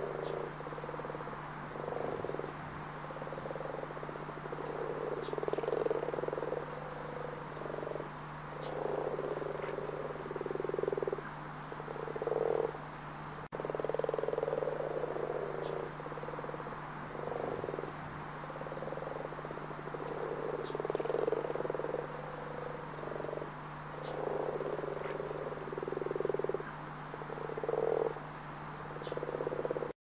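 Frogs croaking: repeated low croaking calls, some short and some drawn out, over a steady low hum, with faint short high chirps here and there.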